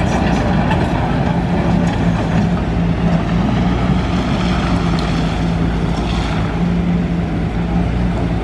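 Diesel engines of a crawler excavator and a dump truck running steadily, with an even droning tone.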